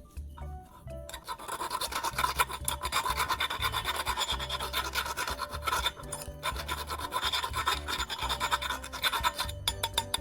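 Rapid rasping strokes of metal being filed, starting about a second in and stopping shortly before the end, over background music.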